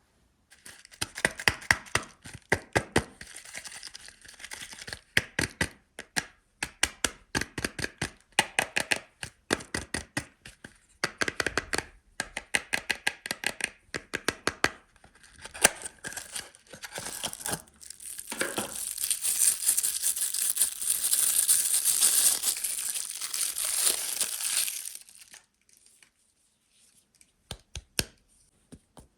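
Crisp soap wrapper being unwrapped by hand: rapid crackling and crinkling, then a few seconds of continuous tearing and rustling about two-thirds of the way through, dropping to a few soft clicks near the end.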